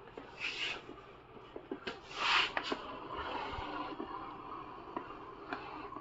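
Yeedi Vac Max robot vacuum running across a tile floor, with scattered clicks and two brief hissing scrapes, one about half a second in and a louder one about two seconds in.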